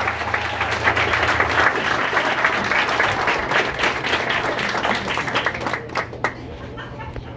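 Small audience clapping and applauding at the end of a live band's song. A low sustained note from the stage dies away about a second and a half in, and the applause thins out toward the end.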